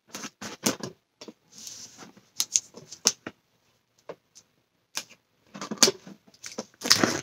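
Fingers tapping, scratching and sliding over a shrink-wrapped cardboard box, its plastic film crinkling. The sound is a run of irregular small clicks and rustles that gets busier and louder near the end.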